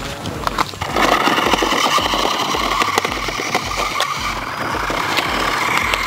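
Remote-control toy motorcycle running along a rough gravel road: a steady whine comes in about a second in and holds, over a crackle of small clicks from its tyres on the grit.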